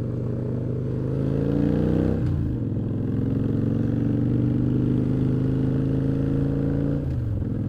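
Motorcycle engine accelerating through the gears: the pitch climbs, drops sharply at an upshift about two seconds in, climbs again more slowly, and drops at a second shift near the end.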